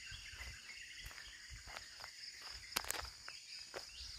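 Steady high-pitched drone of an insect chorus, with low rustling from movement and a pair of sharp clicks just under three seconds in.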